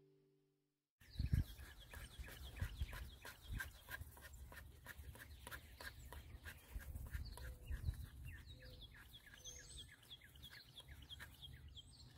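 The last of a strummed acoustic guitar piece fades out, then outdoor ambience: small birds chirping over and over with a few whistled calls, over an uneven low rumble of wind on the microphone.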